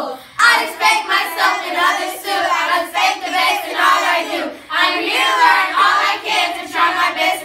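A group of children chanting a school pledge together in unison, with two short pauses for breath.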